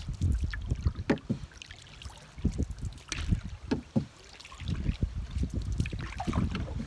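Wooden canoe paddle strokes dipping and pulling through choppy lake water, each stroke splashing, over a steady low rumble of wind on the microphone. There is a quieter lull about two seconds in before the strokes pick up again.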